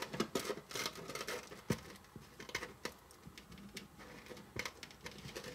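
Small spatula spreading thick cookie dough into a small pan: irregular soft scrapes, pats and clicks, busiest in the first second and a half, with one sharper click just before two seconds in.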